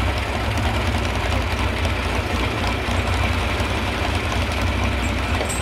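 Antique farm tractor's engine idling steadily at low revs.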